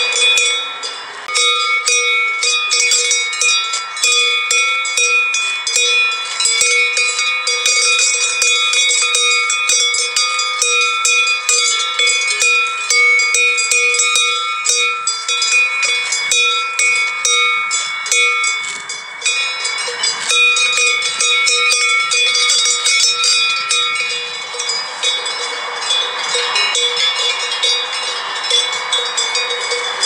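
Many bells on a flock of sheep clanking continuously: a dense, irregular jangle of metal strikes over several overlapping ringing tones.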